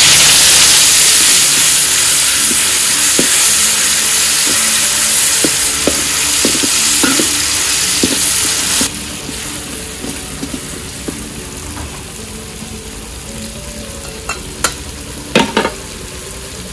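Ground chili paste sizzling loudly as it hits hot oil in an aluminium wok, with a metal spatula scraping and stirring it. About nine seconds in, the sizzle drops to a softer steady frying, and a few sharp knocks come near the end.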